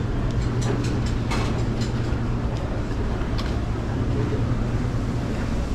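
Steady low rumble of a vehicle running, with a constant low hum and a few light clicks and rattles.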